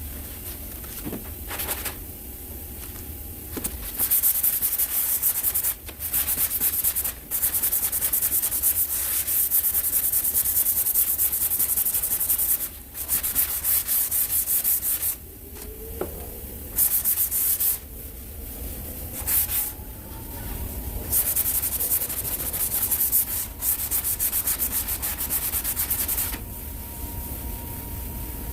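Sandpaper on a hand sanding block worked rapidly back and forth over cured polyester body filler, a dry scratchy hiss. It comes in runs of several seconds, starting about four seconds in, with short pauses between runs.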